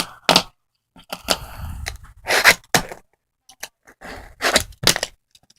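Cracked fingerboard being handled and pressed: a series of sharp clicks and cracks, about six, with short stretches of scraping between them, as the broken deck gives and pops.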